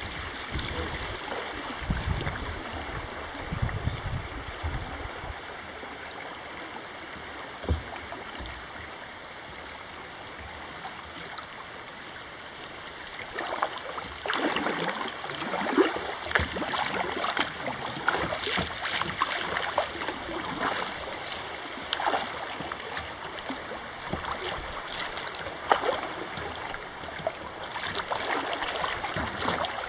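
River current flowing around a kayak. From about halfway through, bursts of splashing and gurgling come in as the water turns choppy.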